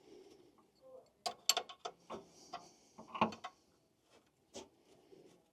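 Irregular metal clicks and clinks of a wrench and fitting as a fuel line is unhooked from a car engine's carburetor, loudest about one and a half and three seconds in.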